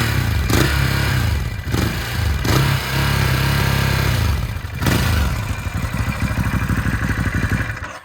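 Ducati Hypermotard 950 SP's L-twin engine, breathing through Termignoni slip-on silencers with the catalyst still fitted, revved in repeated throttle blips while standing, with several sharp cracks as the revs drop. About five seconds in it settles to a steady, lumpy idle.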